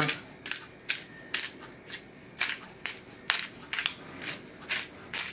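A hand-twisted pepper mill grinding pepper: a steady run of short crunchy grinding strokes, about two a second.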